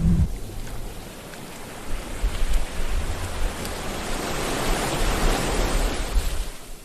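Sea waves washing in on the shore, one surge swelling about four seconds in and falling away near the end, with a low rumble underneath.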